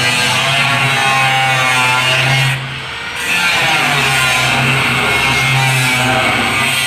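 Background music with guitar, briefly dropping away about two and a half seconds in.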